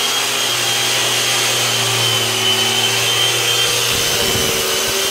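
An electric motor running steadily, with a low hum under a high whine. The low hum breaks up for about a second near the end.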